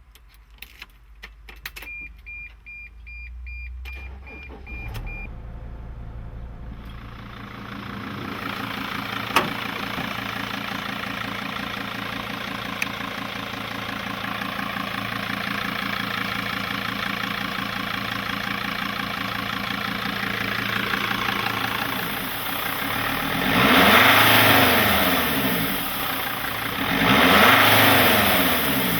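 2005 Sprinter 2.7L five-cylinder CDI turbo diesel being started: a few clicks and a string of short dashboard warning beeps, a low rumble of cranking, then the engine catches and settles into a steady idle. Near the end it is revved twice, each time rising and falling back to idle.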